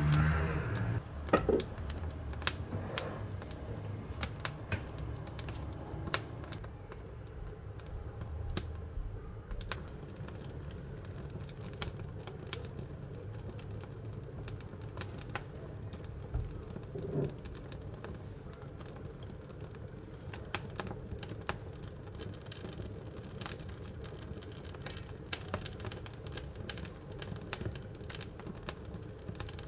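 Wood fire crackling inside a wood-burning cooking stove: irregular sharp pops and ticks over a low steady rumble of the burning fire, with a louder pop about a second and a half in.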